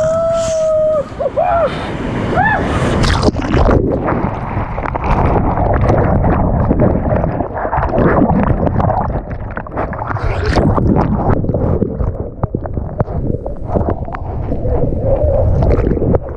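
White-water rapids churning and splashing around an inflatable raft, with wind buffeting the microphone. A long yell is heard near the start, and the rushing water takes over about three seconds in.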